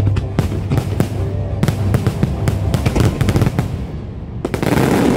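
Fireworks finale: a rapid string of shells bursting with many sharp bangs in quick succession, then, about four and a half seconds in, a dense crackling barrage of many effects going off at once.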